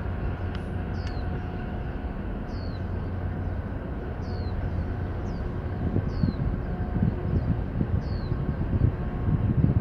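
Low steady drone from the passing container ship, with a bird repeating a short, high, falling chirp about once a second. From about halfway through, wind gusts buffet the microphone.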